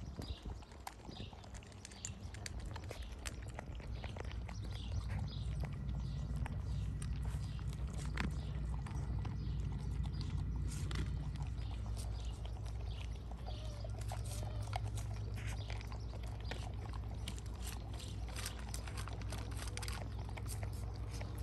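Pit bulls eating kibble mixed with ground beef from a stainless steel bowl: rapid crunching and chewing clicks, over a low steady rumble.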